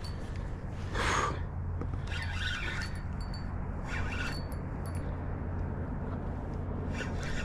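Spinning reel being wound while a hooked carp is played, with short scraping and rustling noises a few times, over a steady low rumble.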